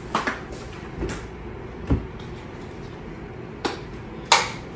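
Scattered knocks and clicks of a carton of goat milk being handled at a kitchen counter: a dull thump about two seconds in and a sharp click near the end, the loudest.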